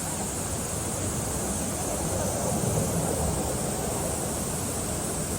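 Mountain valley stream water rushing steadily over rocks, with a steady high-pitched hiss or buzz above it; the rush swells slightly about halfway through.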